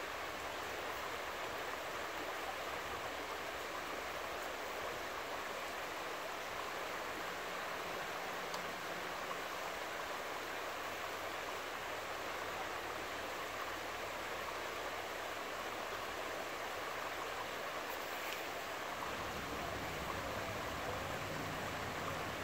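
Steady rush of a fast-flowing river running over broken, shallow water. A low rumble joins it near the end.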